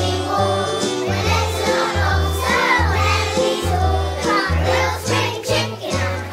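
Young children's choir singing a song together over instrumental accompaniment with a steady bass line.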